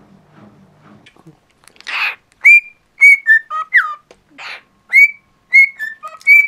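Cockatiel whistling a phrase of short, clear notes, several beginning with a quick upward slide and one gliding down, mixed with two brief raspy notes. It starts about two seconds in and goes on to the end.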